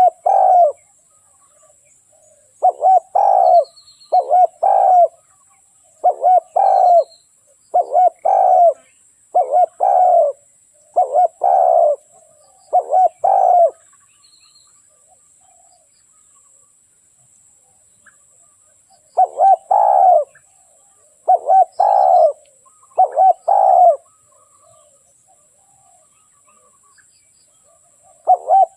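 Dove cooing: short coos repeated in quick pairs and groups, with a pause of about five seconds a little before halfway, then cooing again.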